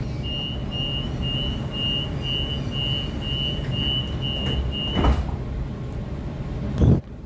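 Waratah train door-closing warning: a high beep repeated about two and a half times a second for five seconds. The doors then thud shut about five seconds in, with a second, louder thud near the end, over the carriage's steady low hum.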